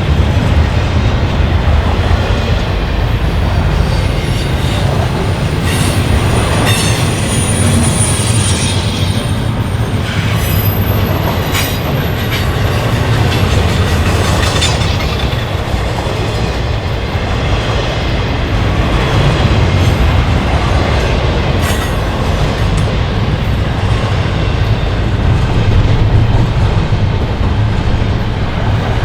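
Freight train cars rolling past at close range: a steady rumble of steel wheels on rail with occasional clicks, and two brief high-pitched wheel squeals about 7 and 11 seconds in.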